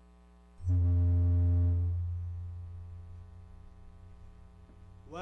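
A deep electronic bass tone comes in suddenly about half a second in, with higher notes over it for about a second, then slowly fades away. It sounds like a music sting marking a segment change on a radio stream.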